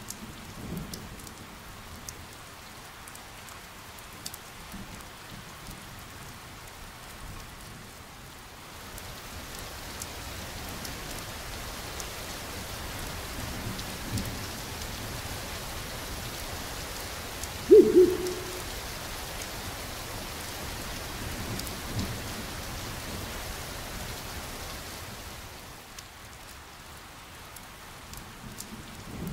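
Steady rain ambience that grows louder about nine seconds in and eases off again after about twenty-five seconds. A short, loud pitched cry sounds about eighteen seconds in, and there are a few faint low thuds.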